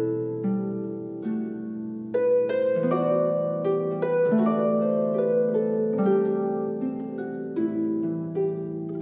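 Slow instrumental background music of plucked, ringing notes, one after another, over held lower notes.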